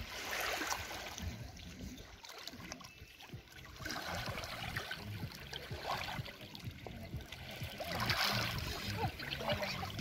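Shallow seawater lapping and trickling at the shore in a few gentle washes, one swelling about a second in, another around the middle and a third near the end.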